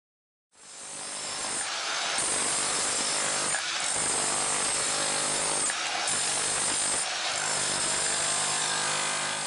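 Power tool running under load on concrete: a steady motor hum under a loud hiss, dipping briefly three or four times.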